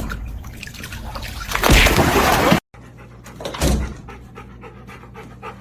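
A dog panting, with a loud noisy stretch from about one and a half seconds in that cuts off suddenly.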